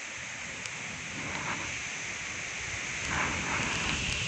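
Steady rain of a thunderstorm falling, with the noise swelling as the wind gusts about three seconds in, and a few sharp taps over it.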